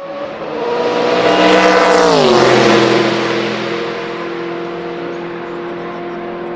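Sauber-Mercedes C11 Group C prototype's 5.0-litre twin-turbo V8 passing at speed. The engine note swells, drops sharply in pitch about two seconds in as the car goes by, then runs on at a steady lower pitch as it pulls away.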